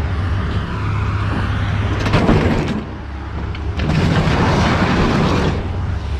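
A refrigerator being shoved off a truck bed: a heavy crash with knocks about two seconds in, then a longer scraping, clattering rush a couple of seconds later, over a truck engine idling steadily.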